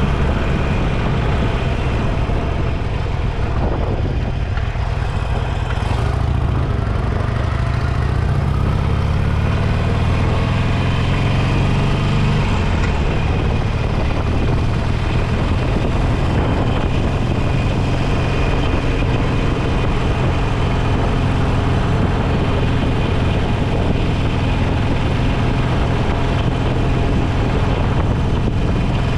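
Motorcycle engine running steadily; about eight seconds in its pitch climbs for a few seconds, then drops abruptly.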